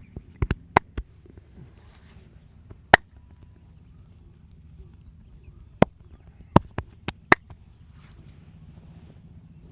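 Sharp hand slaps and pops of a head and back massage, single strikes at an irregular pace: a quick cluster in the first second, one loud smack about three seconds in, and another run of five from about six to seven and a half seconds, over a steady low background rumble.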